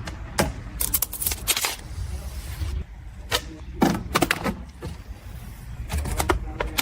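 Irregular clusters of sharp clicks and knocks over a steady low rumble.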